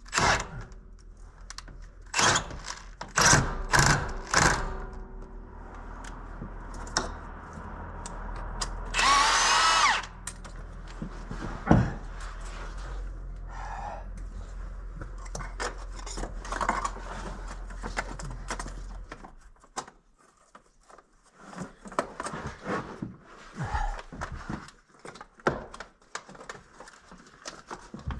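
Mechanic's tools clicking and knocking on metal, with a power tool running in one burst of about a second about a third of the way in. A low steady hum runs underneath and stops about two-thirds through.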